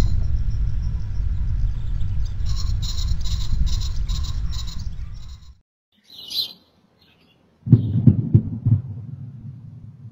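Sonic boom picked up by outdoor security-camera microphones, believed to come from a daytime fireball meteor. A deep rumble dies away over about five seconds while birds chirp, then cuts off. Near the end, a second recording catches the boom as a sudden low rumble with several thuds, fading out.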